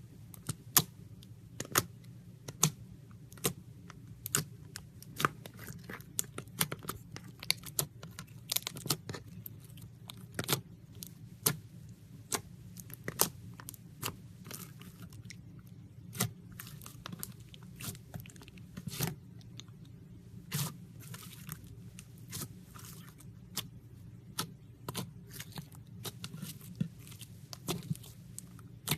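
Slime being squeezed and pressed by hand, giving an irregular run of sharp crackling pops and clicks, a few each second, over a faint steady low hum.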